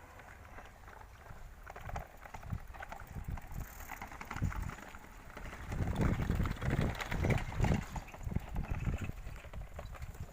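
Wheels clattering over the rails of a railway level crossing: an uneven run of knocks and thuds that builds up and is loudest about six to eight seconds in.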